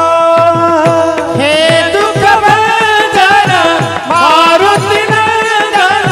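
A Warkari devotional bhajan: a group of men singing together into microphones while clashing small brass tal hand cymbals, over a drum beating a steady rhythm of evenly spaced strokes.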